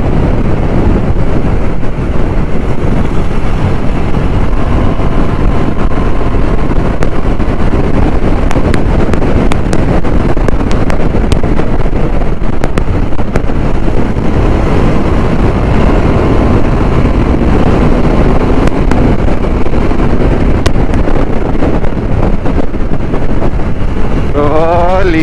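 Motorcycle running at road speed with heavy wind rushing over the helmet-mounted microphone, a steady loud rush with the engine under it.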